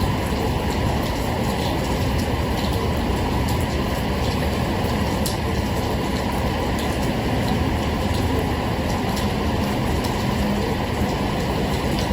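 Steady rain noise: an even hiss with a low rumble underneath and faint scattered drop ticks.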